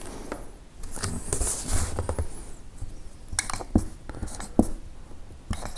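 Dry-erase marker squeaking and scratching across a whiteboard as a word is written, followed by several light knocks and clicks from the board and marker being handled.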